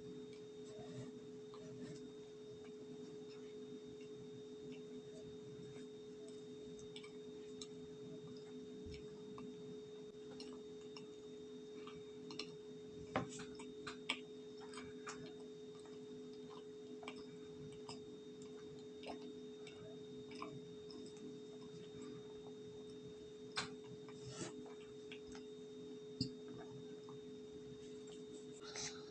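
Faint, scattered crunches and clicks of cornstarch powder being handled and eaten, with a few louder sharp ones about halfway through and again later. A steady electrical hum runs underneath.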